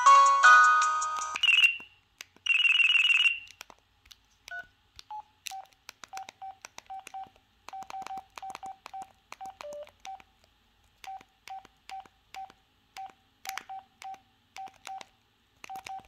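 LG UX390 flip phone playing the end of a preloaded ringtone melody, then a short buzzy warbling tone. After that comes a long run of short, same-pitch keypad beeps, each with a button click, as its menus are stepped through.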